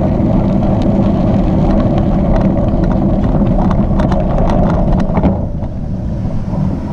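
Gravel bike tyres rolling on a gravel trail, with a steady low rumble of wind and road noise and the bike rattling in many sharp clicks. The rumble eases about five seconds in as the bike slows.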